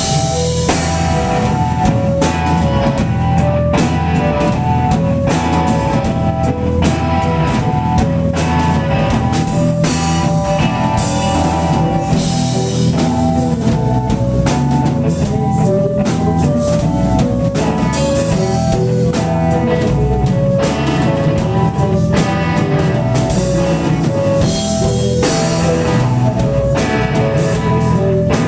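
Live rock band playing in full: drum kit keeping a steady beat under electric guitar, bass and keyboards. A repeating riff of short stepped notes runs over the beat.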